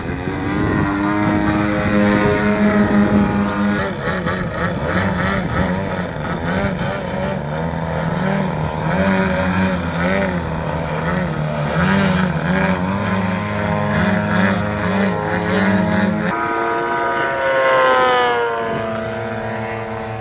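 Engines of propeller-driven aerobatic model aircraft, the note rising and falling over and over as the throttle is worked, with one plane hanging on its propeller midway. Near the end the note climbs sharply and then glides down.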